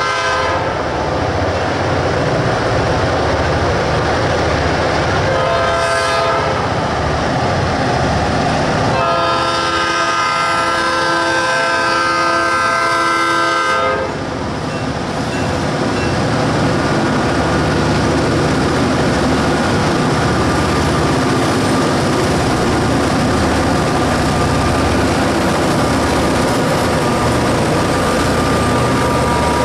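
Diesel locomotive horn sounding for a grade crossing: a blast near the start, another about six seconds in, and a long one from about nine to fourteen seconds. The horn then stops, and the lead locomotives come by with a deep, steady diesel rumble, working hard with exhaust smoking.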